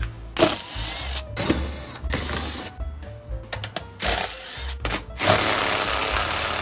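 A power tool running in several short bursts, the longest near the end, backing out bolts during a motorcycle fairing teardown. Background music plays underneath.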